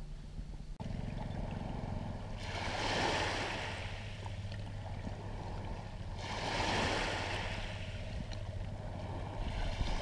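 Low steady drone of an approaching bajara's engine, a motorized wooden river canoe, carried across the water. A washing noise of wind and waves swells up twice, about three seconds in and again near seven seconds.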